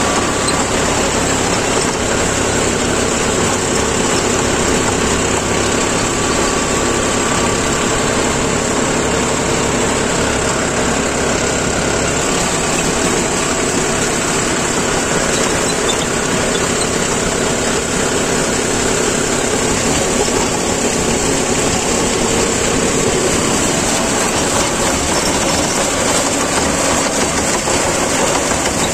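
John Deere tractor's diesel engine running steadily, heard close from the tractor itself, pulling a rotary tiller through the soil.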